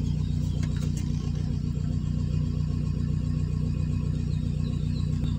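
A steady low engine hum, like a motor idling, holding an even pitch throughout, with a few faint clicks in the first second.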